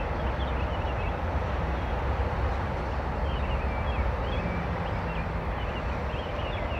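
Birds chirping, with many short high calls scattered throughout, over a steady low rumble.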